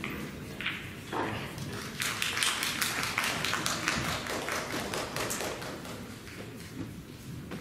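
A rapid patter of many light taps, starting about two seconds in and thinning out a few seconds later.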